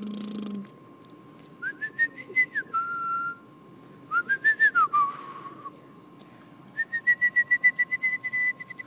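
A baby laughing in three bouts of rapid, high-pitched squealing giggles. Each bout is a quick run of pulses on a held pitch; the last and longest one falls in pitch at its end.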